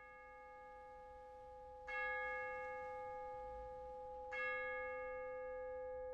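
A bell-like chime ringing, struck again twice about two and a half seconds apart, the same note each time, each stroke ringing on steadily until the next.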